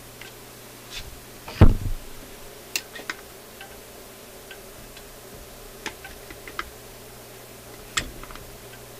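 Hands working at the centre of a BSR record changer's platter, trying to reach the E-clip under the centre piece: scattered small clicks and taps, with one dull thump about a second and a half in.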